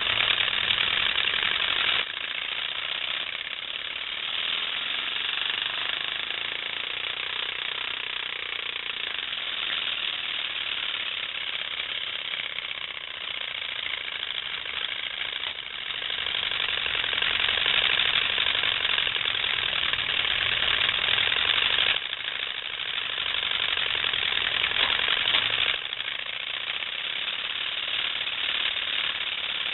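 A folded note card flapping against the spokes of a Schwinn road bike's wheel, making a continuous rapid clatter like a small motorcycle engine. It gets louder, then drops back, several times.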